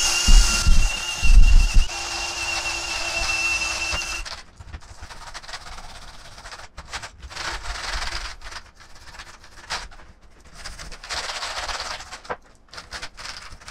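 An alcohol-soaked cleaner scrubbing hard across the keys of a mechanical keyboard, in short irregular rubbing and scraping strokes with the keycaps rattling. For the first four seconds a hiss with a steady high tone and a few low thumps sits over it.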